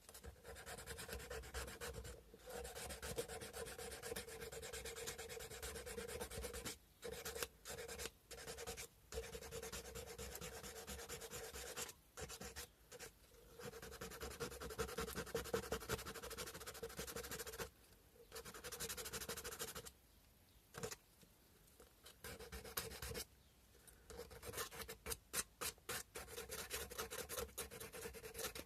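Sandpaper rubbing by hand on a cow-bone fish hook: long runs of quick back-and-forth rubbing broken by short pauses, then quick, separate short strokes near the end.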